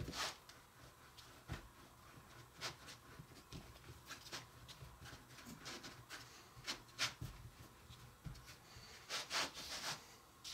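Faint rubbing and a scattering of soft taps as hands divide a ball of brownie dough into pieces on a work surface.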